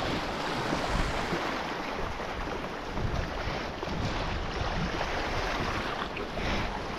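Wind buffeting the microphone over the steady wash of sea waves against the shore.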